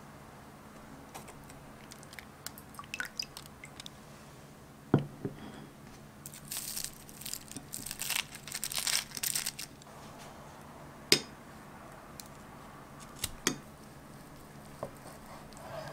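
Aluminium foil and plastic wrap crinkling as they are peeled off a foil-wrapped roll of chicken ham, mostly between about six and ten seconds in. A few sharp knocks come before and after it, the loudest about five and eleven seconds in.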